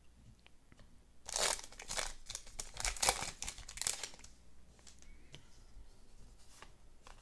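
A plastic trading-card pack wrapper being torn open and crinkled by hand. There is a burst of crackly tearing lasting about three seconds, starting a second in, then a few faint rustles.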